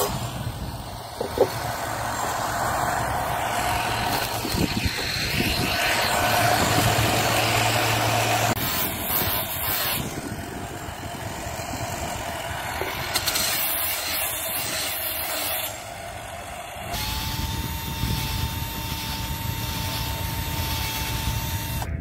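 Einhell cordless drill with a sanding disc, running against the wood of a toy rifle stock. It comes in several short stretches that cut in and out, with a steady motor whine in the last few seconds.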